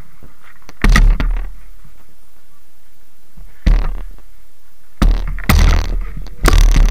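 Bumps and knocks on the camera and its microphone as it is handled: sudden rumbling thuds, one about a second in, one past the middle, and a cluster in the last two seconds, over a steady low hum.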